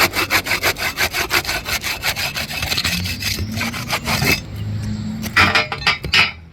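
A hand tool scraping and crunching on asphalt 3-tab roof shingles in rapid, even strokes, about five a second, for the first four seconds. A few louder strokes come near the end.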